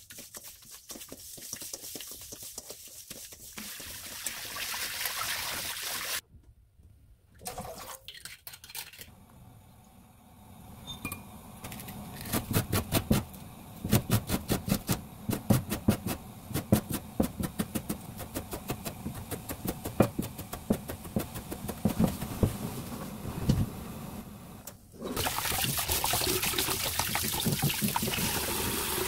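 Hands rubbing raw oysters in a stainless steel bowl of salted water, then a knife mincing carrot and green onion on a plastic cutting board in a long run of rapid, even chops, the loudest sound. Near the end a kitchen tap runs in a steady stream over the oysters in a mesh strainer.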